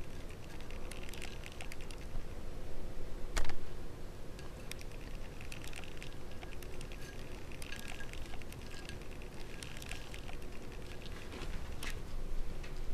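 Crisp breaded fried chicken rustling and crackling as fingers pick at it on a plate: small crinkly clicks in bursts, with one sharper click about three and a half seconds in.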